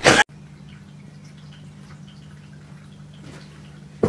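A brief loud noise that cuts off abruptly right at the start, then a quiet, steady low hum with a few faint ticks.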